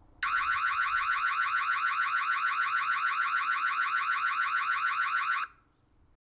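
Ring Floodlight Cam Pro's built-in siren sounding loud, a fast warbling alarm of rapidly repeated rising sweeps that cuts off abruptly about five and a half seconds in.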